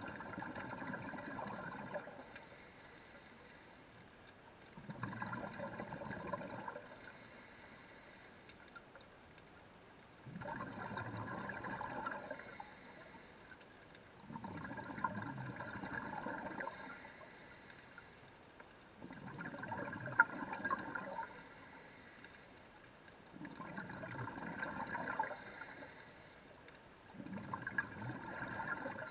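Rhythmic breathing of the diver or snorkeler holding the camera, heard underwater as gurgling bursts about two seconds long, repeating roughly every four seconds, seven times in all.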